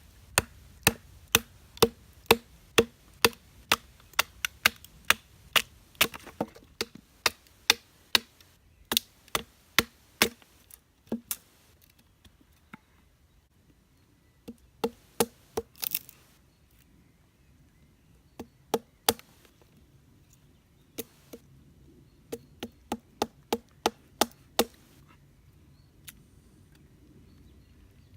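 Wood being chopped or split: runs of sharp knocks, about two a second, broken by pauses.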